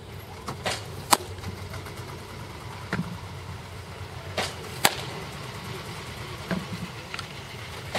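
Baseball popping into a catcher's leather mitt twice, about four seconds apart, each catch with a softer click a fraction of a second before it. A low steady hum underneath.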